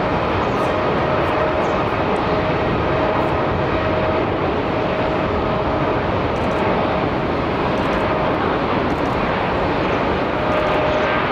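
Boeing 787-9 airliner's jet engines running with a steady, even roar and a faint whine as the plane rolls along the runway for departure.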